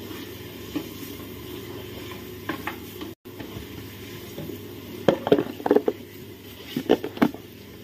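Wooden spoon stirring mutton in a large steel pot, scraping and knocking against the metal in a few short bursts, loudest about five seconds in, over a steady hiss.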